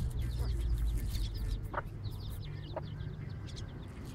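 Chickens calling around the feed, with many short high peeps from chicks repeating throughout and two sharp clicks about a second apart.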